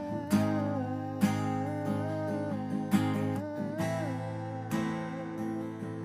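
Steel-string acoustic guitar strummed as song accompaniment, with sharp strokes a second or so apart, under a held, wavering sung note.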